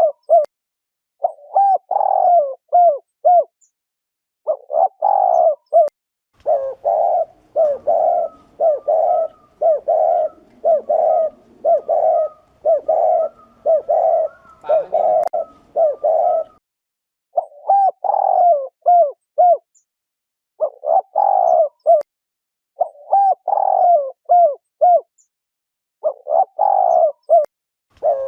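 Spotted dove giving its bowing 'gù' coo, the courtship or territorial coo of a male. The coos come in short phrases of several notes with brief pauses between them, and a longer unbroken run of coos in the middle.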